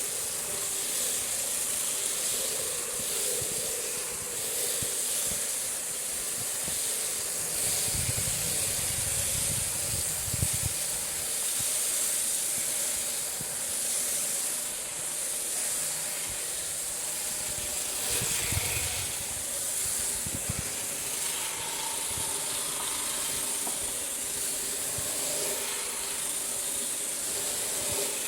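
Electric sheep-shearing handpiece running steadily as it cuts through the fleece, a continuous high hiss, with a couple of brief low rumbles about eight and eighteen seconds in.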